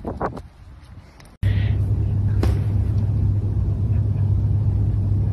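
A steady low rumble starts abruptly about a second and a half in and holds at an even level, with a brief higher-pitched noise just after it starts.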